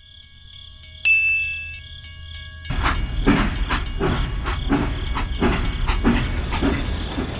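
A ringing tone starts sharply about a second in, then a train running: a regular clickety-clack of wheels, about three knocks a second, over a steady low rumble.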